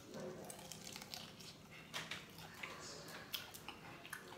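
Quiet, close eating sounds: biting into fried food and chewing, with many small wet clicks and a light crinkle.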